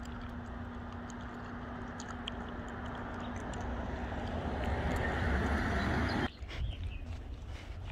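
Outdoor street ambience: a rushing noise over a low rumble that swells louder, then cuts off abruptly a little after six seconds in, leaving quieter ambience with a few light clicks.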